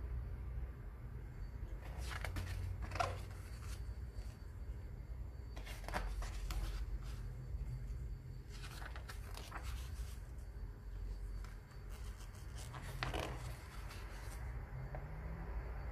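Pages of a graphic novel being turned by hand: a short paper swish every two to four seconds, over a low steady hum.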